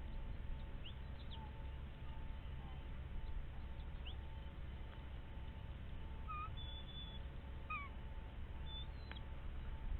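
A few short, squeaky bird calls, some rising or bending in pitch, over a steady low rumble.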